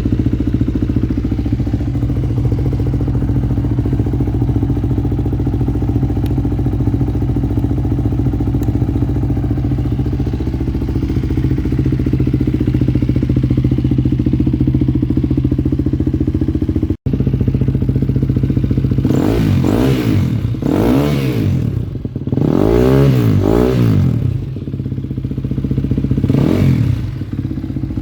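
KTM EXC-F 250 single-cylinder four-stroke enduro engine with an Akrapovic exhaust, idling steadily. After a brief break about two-thirds of the way in, the throttle is blipped four times, each rev rising and falling back to idle, and the third is the longest.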